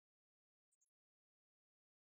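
Near silence, broken only by two very faint clicks close together about three quarters of a second in.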